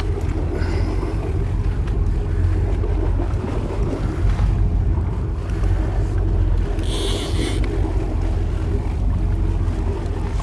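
Boat engine running with a steady low drone, under wind and water noise, and a short burst of hiss about seven seconds in.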